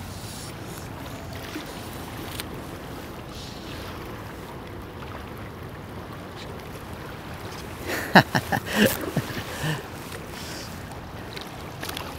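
Steady rush of river current flowing past a wading angler. About eight seconds in there is a short cluster of loud, sharp sounds.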